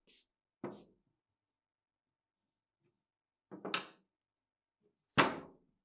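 Short knocks of a hammer and rusted Thompson submachine gun parts being set down and handled on a wooden tabletop: one about half a second in, a quick pair about three and a half seconds in, and the loudest near the end.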